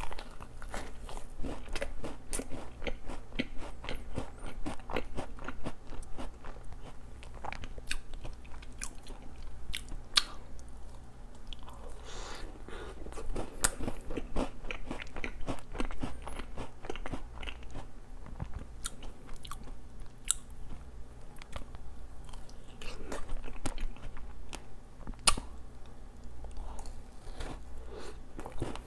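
Close-miked eating sounds: bites into a strawberry-and-cream-topped doughnut filled with strawberry jam, then chewing, with many sharp little wet clicks and crackles of the mouth all through.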